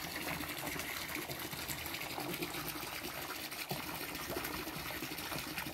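A stream of water pouring into a garden pond, splashing steadily onto the surface.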